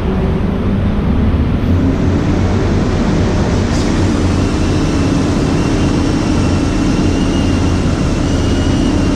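Earth drill rig (crawler-crane base machine) running steadily under load as its kelly bar winds the drilling bucket up through the pile casing. A deep engine hum, with a tone that steps up slightly about two seconds in and a faint high whine joining about four seconds in.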